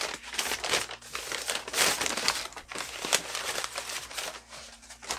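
Brown paper wrapping crumpled and rustled by hand as it is pulled off a boxed vinyl figure: a steady crackling, loudest about two seconds in and dying down near the end.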